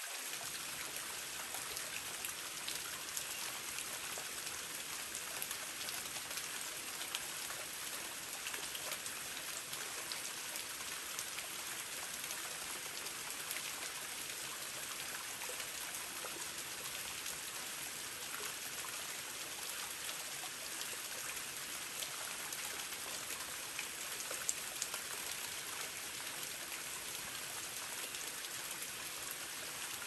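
Waterfall: water falling and splashing onto rock, a steady even rush with fine droplet splashes scattered through it.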